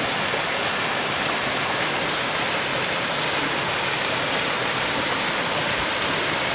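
A small waterfall cascading over rocks into a stream: a steady, even rush of water.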